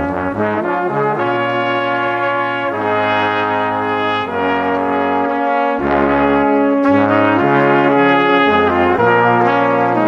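Background music: sustained, brass-like chords over a stepping bass line, the notes changing every second or so.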